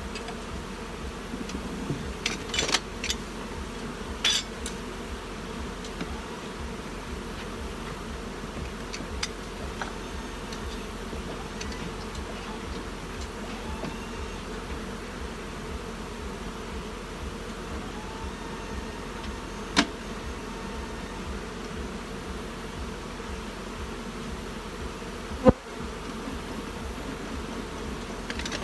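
Steady buzzing of a large number of honey bees flying around open hive boxes. A few sharp knocks from hive boxes being handled break through it, the loudest about 25 seconds in.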